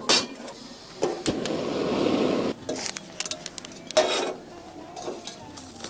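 Camp cookware being handled: a series of clinks and knocks, with a steady hiss lasting about a second and a half starting about a second in.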